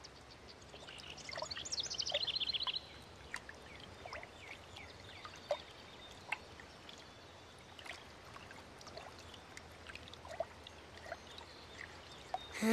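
Calm pond ambience: a bird trills with a quick run of repeated chirps about a second in, then gives sparse short chirps over faint trickling, lapping water.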